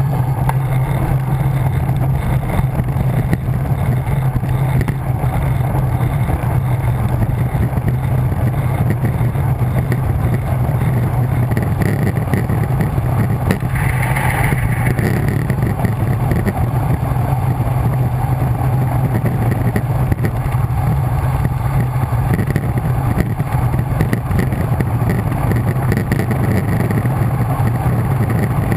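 Steady wind rush buffeting a bike-mounted camera's microphone on a fast road-bike descent: a loud, even rumble. A brief brighter hiss comes about halfway through.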